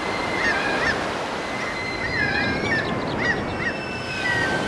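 Seagulls calling over and over above a fishing trawler, over the steady wash of the sea.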